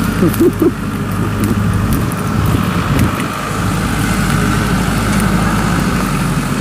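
Farm diesel engine running steadily at a constant speed, a low even drone, with a short wavering voice call about half a second in.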